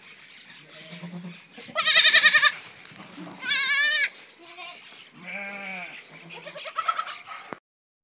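Goats bleating: two loud, high, quavering bleats about two and three and a half seconds in, then lower, softer bleats. The sound cuts off abruptly near the end.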